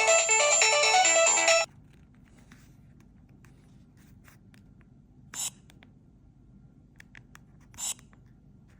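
A Nokia phone ringtone melody playing, made of bright electronic beeping notes, that cuts off suddenly about a second and a half in. Then come a few faint clicks and two short noisy blips.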